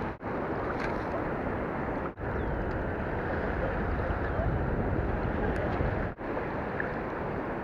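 Steady rush of river water flowing below a hydroelectric dam, dropping out three times for a split second.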